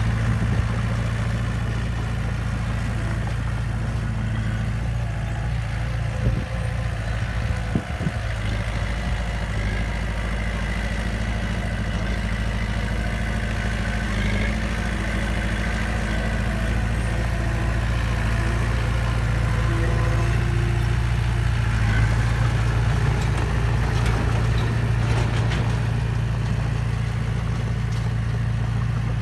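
Small crawler bulldozer's diesel engine running steadily as the blade pushes loose dirt, with a few brief knocks about six to eight seconds in.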